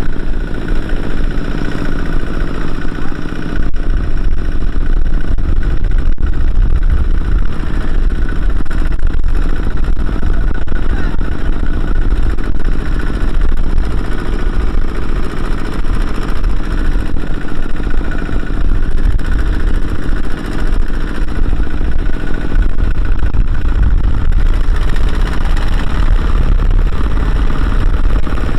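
Kubota ZT155 walk-behind tractor's single-cylinder diesel engine running loud and steady, hauling a trailer loaded with rice sacks through deep mud.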